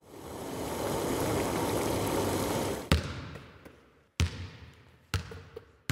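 Espresso pouring in a thin stream into a cup, a steady trickle for about three seconds. Then four sharp thuds, each with a short ring-out, coming closer together.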